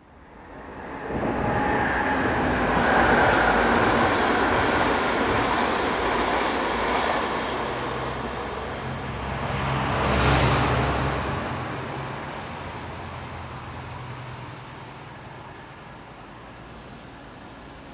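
Locomotive-hauled intercity passenger train passing at speed, its wheels running loud on the rails. The noise builds quickly about a second in, swells again with a low hum near the middle, then slowly fades as the coaches draw away.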